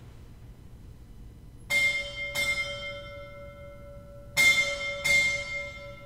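A small bell struck four times in two pairs, each strike leaving a clear ringing tone that slowly dies away.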